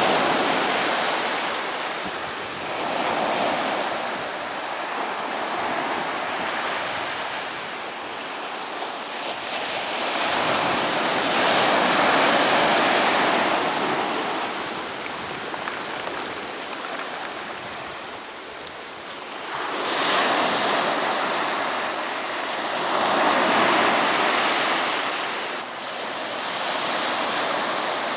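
Ocean waves breaking and washing on a beach: a continuous rushing surf that swells and recedes, with louder surges every several seconds.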